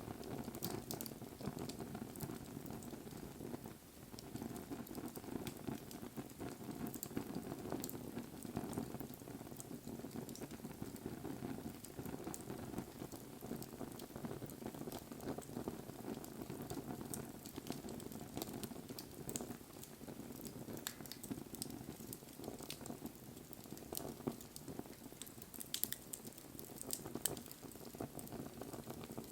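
Wood campfire burning with a steady low rustle of flame and scattered sharp crackles and pops, which come more often near the end.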